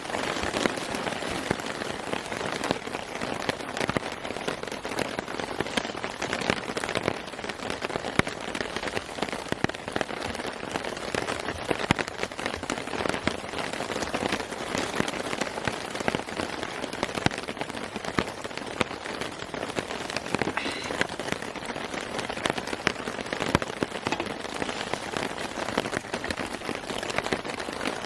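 Steady rain falling, a dense haze of many small drops ticking on a surface close by.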